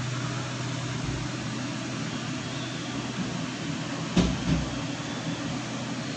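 Steady droning hum, like a running fan or motor, with a sharp knock a little past halfway and a softer one just after it.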